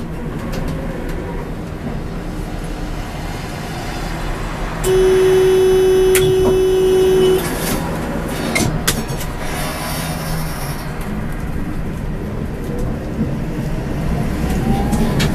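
Tram running along its track: steady rumble of wheels on rails with a few sharp clicks. About five seconds in, a horn tone is held for about two and a half seconds, and near the end a faint rising whine comes in as the tram picks up speed.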